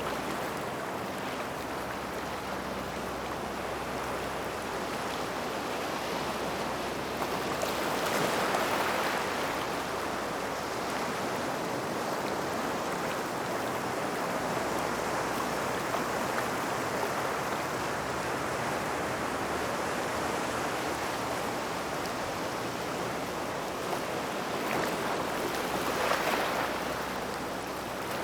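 Small waves washing onto a gravel beach near rocks, a steady wash of water with two swells as waves surge in, about a quarter of the way in and again near the end.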